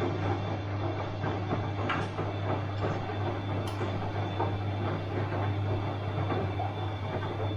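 Bosch washing machine running: a steady low motor hum under continuous noise, with many small irregular knocks and clicks.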